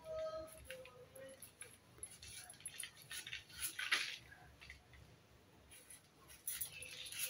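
Giant arum root (maan kochu) being peeled against a boti's fixed curved blade: scattered short scraping and slicing strokes as the blade pares off the fibrous skin, the loudest about four seconds in.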